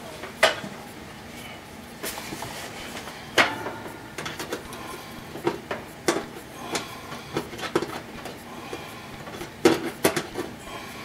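Adjustable wrench clicking and clinking against the screw and steel mounting bracket of an oven bake element as the screw is tightened: scattered sharp metallic knocks, with a quick cluster of them near the end.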